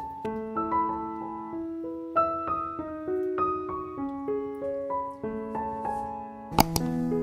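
Background piano music, a melody of single notes over held lower notes. Near the end, a sharp double click cuts through it.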